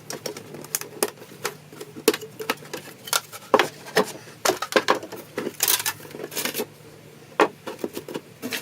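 Irregular clicks, taps and knocks of hard parts being handled while an A4 picture frame is taken apart and its glass removed.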